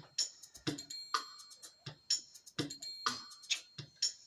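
Recorded music with a steady, repeating drum-machine beat.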